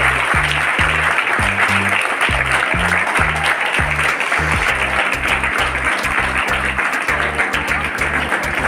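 An audience applauding steadily over background music with a rhythmic bass line.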